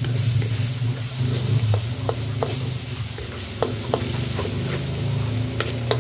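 Corned beef with onion and garlic sizzling in a hot pan as a wooden spatula stirs it, clicking and scraping against the pan about a dozen times, over a steady low hum.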